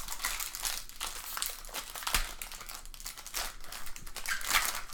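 Trading card pack wrappers crinkling and cards being handled in quick, irregular crackles, with a soft knock about two seconds in.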